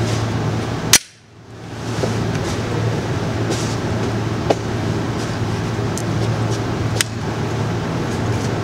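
Three semi-automatic pistol shots a few seconds apart. The first is the loudest, and the recording drops out for a moment after it. A steady low hum runs underneath.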